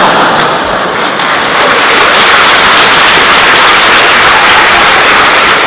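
Audience applauding, with laughter mixed in. The clapping dies away at the end.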